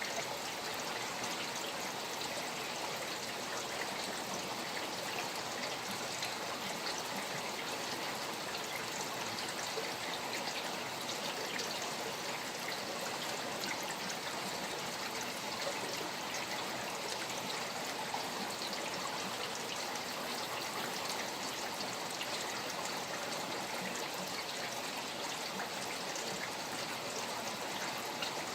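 Steady rain falling beside flowing stream water: an even, unbroken wash of water sound, sprinkled with small drop ticks.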